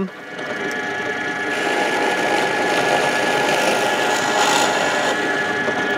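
Axminster AW285PD bench pillar drill running with a steady motor whine as a 6.5 mm brad point bit bores through a small wooden block. The cutting noise grows louder about a second and a half in and eases off near the end.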